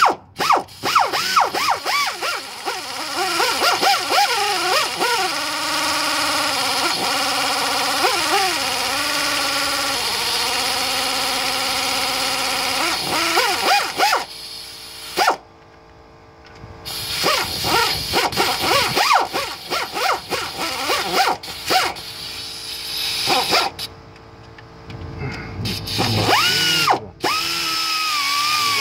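Pneumatic air ratchet running down cylinder head bolts in repeated bursts, with a rapid clicking and an air-motor whine whose pitch rises and falls with the load, and two short pauses between bolts.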